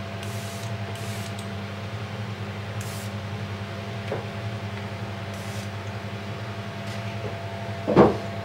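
Gravity-feed spray gun spraying glaze onto a pot in short hisses, four brief bursts in the first six seconds, over a steady machine hum. A single loud knock near the end.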